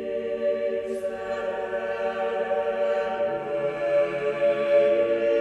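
Music: the slow opening of a rock track, with long held chords that sound like a choir. There are no drum hits, and the low note changes about three seconds in.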